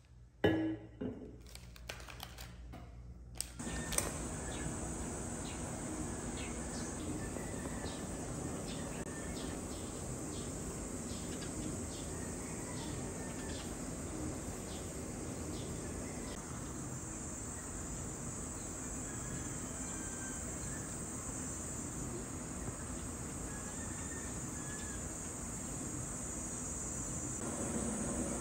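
A few knocks of something handled on a table, then from a few seconds in a steady outdoor background of insects buzzing in a high, even drone, with scattered bird chirps.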